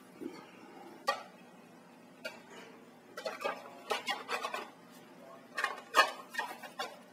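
Handling noise from a plastic smoke detector (Honeywell 5808W3): a scattered series of light clicks and knocks as its housing is turned over and handled. They come in two clusters, the loudest knock about six seconds in.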